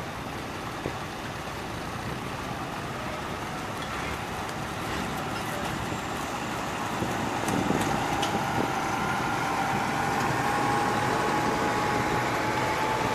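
Tractor diesel engines running at a tractor-pull track, growing louder about halfway through, with a faint whine that rises slightly in pitch near the end.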